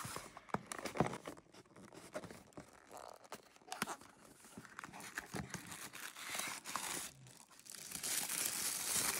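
Small cardboard box being pulled out and opened, with scattered clicks, scrapes and tearing of card. Then tissue paper crinkles steadily from about eight seconds in as the item is unwrapped.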